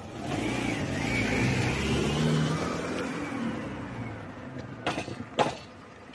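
An SUV drives past close by and away over a level crossing, its engine rising in pitch as it pulls away. Near the end come two sharp thumps about half a second apart as its wheels go over the rails.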